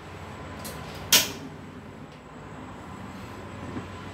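One sharp click about a second in from the gas wok stove as it is worked by hand, over a steady low hum.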